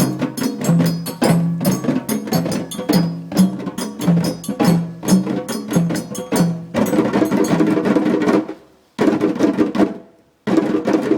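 Djembe drumming by hand: quick, sharp strokes over a steady low beat about every two-thirds of a second. Around two-thirds of the way through the pattern changes to a denser run of strokes, broken by two short pauses.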